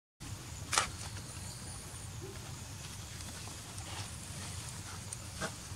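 Outdoor ambience: a steady low rumble with a few short rustling clicks, the loudest about a second in.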